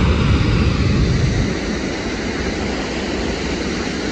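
Steady roar of fast canal water pouring through the open gates of a canal fall (jhal). The low rumble is heavier for the first second and a half, then eases a little.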